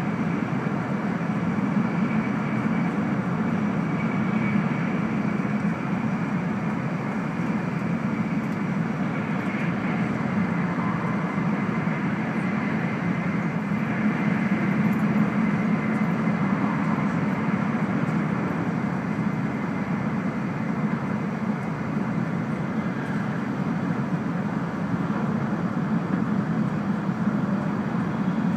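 E2 series Shinkansen running at speed, heard from inside the passenger cabin: an even, constant low drone with a rushing hiss of wheels, rails and air over it.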